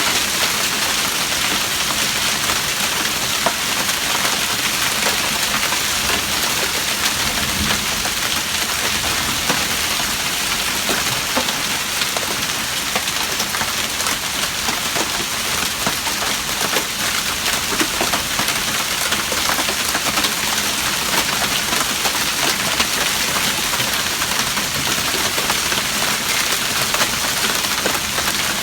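Hail falling: a dense, steady clatter of countless small stones striking, with no let-up.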